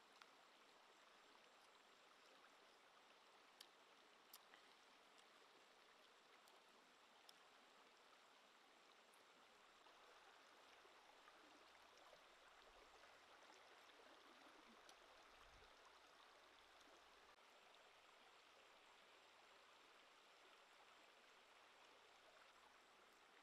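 Faint, steady rushing of a shallow stream flowing over rocks, with a few faint clicks in the first several seconds.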